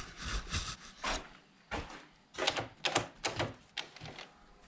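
A string of about ten irregular knocks and clatters, spread over a few seconds with short quiet gaps, as tools are handled against a wall.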